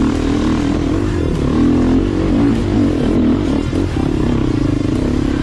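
Trail motorcycle engine running under load, its pitch rising and falling as the throttle is worked, with some clattering from the bike.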